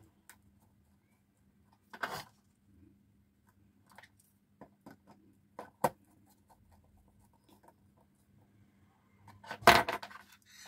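Small screwdriver tightening a wire into a screw terminal block on a thermostat relay board: scattered faint clicks and scrapes, with louder handling noises about two seconds in and again near the end.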